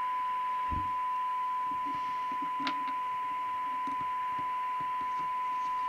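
Steady 1 kHz test tone from the Cobra UK75ST CB radio's speaker over receiver hiss, with the squelch open. It is the signal generator's test signal being received during receive alignment. A light knock comes under a second in and a short click near the middle, from the handset being handled.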